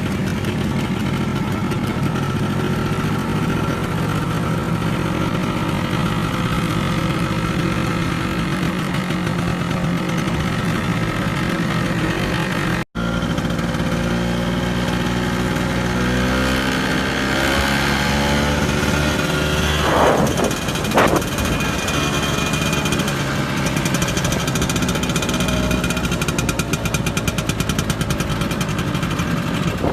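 Vespa scooter engine running steadily. It cuts out for an instant partway through, and after that the engine pitch shifts up and down, with two short sharp sounds in quick succession.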